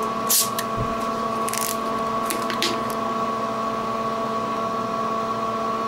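Twist-off cap being unscrewed from a 32-ounce glass bottle of malt liquor: a handful of short crackles and hisses as the seal breaks and the gas escapes, with one dull knock, all in the first three seconds. A steady hum of room ventilation runs underneath.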